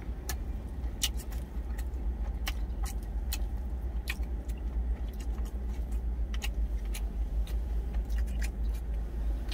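Steady low rumble of a truck idling, heard inside the cab, with scattered sharp clicks of someone eating from a stainless steel bowl with chopsticks, about one or two a second.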